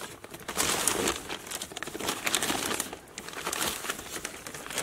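Thin plastic courier mailer bag crinkling and rustling irregularly as hands rummage in it and pull the wrapped item out, loudest in the first couple of seconds with a short lull about three seconds in.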